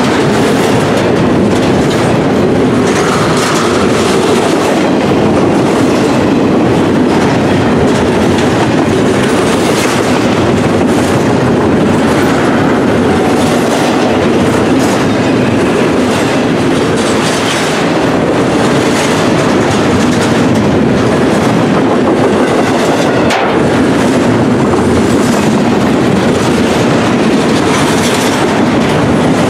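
Double-stack intermodal well cars rolling past at close range: a steady, loud rumble with steel wheels clacking over the rail joints. One sharper knock comes late on.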